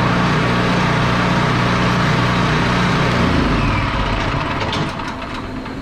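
Champion 196cc single-cylinder generator engine running steadily just after a carburetor rebuild. Its low steady note changes and fades a little about three seconds in, and a few light clicks come near the end.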